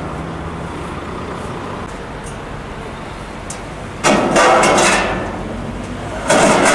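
Heavy vehicle engine running with a steady low rumble beside the road. Two loud bursts of rushing noise cut in, one of about a second at four seconds in and a shorter one near the end.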